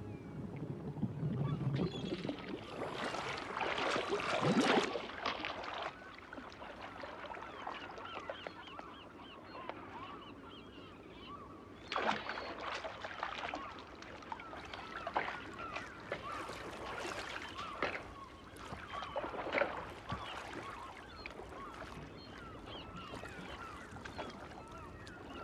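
Seagulls crying again and again over sea water lapping and splashing, with a louder rush of noise for about four seconds near the start as the shark's carcass sinks, and a few sharper splashes later.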